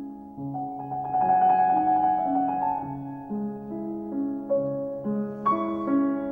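Slow piano music, with held notes and chords changing every second or so.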